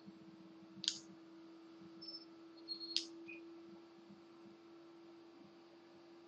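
Faint steady hum with two sharp clicks about two seconds apart and a few brief, high chirp-like tones between them.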